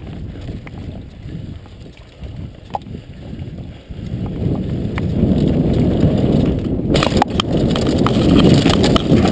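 Mountain bike riding fast down a dirt forest trail: a rumble of tyres and wind on the microphone with the bike rattling over bumps. It gets louder about four seconds in, with a burst of clattering around seven seconds.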